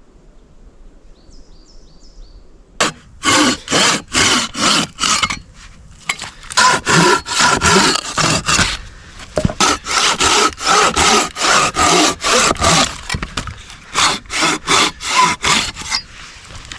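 Silky BigBoy folding pruning saw cutting through wood: quick back-and-forth strokes, about two a second, starting about three seconds in and coming in three runs with short pauses between.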